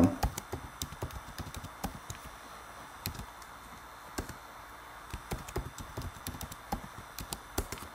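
Keystrokes on a computer keyboard, a password being typed at its prompt and then typed again to confirm it: two runs of light taps with a sparser gap in the middle.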